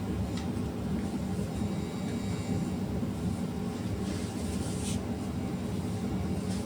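Steady low background hum, with soft paper rustles about half a second in and again between four and five seconds in, as Bible pages are leafed through to find a passage.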